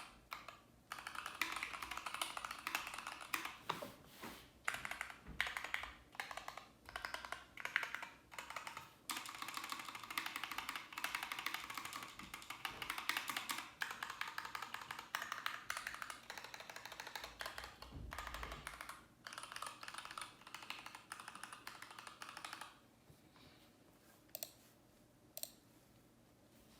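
Mechanical keyboard being typed on in quick, continuous runs of key clicks with short pauses. The typing stops near the end, leaving a couple of single keystrokes.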